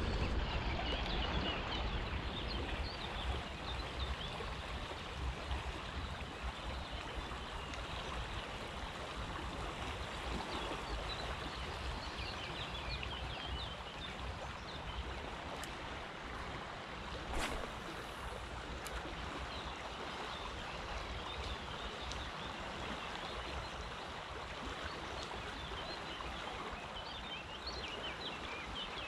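Fast-flowing river water rushing past the bank in a steady wash, with a low wind rumble on the microphone. There is one short sharp click a little past halfway.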